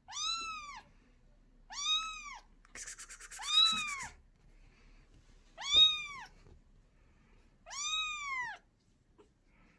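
Kitten meowing five times, high-pitched calls that each rise and fall in pitch, about two seconds apart. A quick run of scratchy clicks comes just before the third meow.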